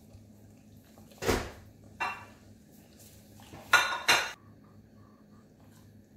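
Kitchen dishes and utensils clattering: four separate clinks and knocks over about three seconds, the last two close together, loudest, and ringing like metal or crockery.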